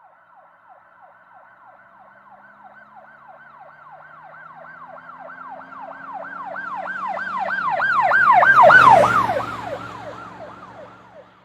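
Emergency vehicle siren on a fast yelp, about three to four falling wails a second, with a vehicle's engine beneath. It grows steadily louder, is loudest about nine seconds in as the pitch drops, then fades away as it passes.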